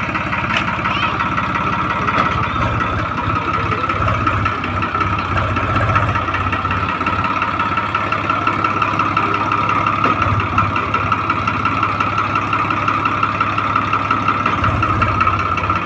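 Diesel engine of a heavy machine running steadily, with a constant high whine over the low engine note.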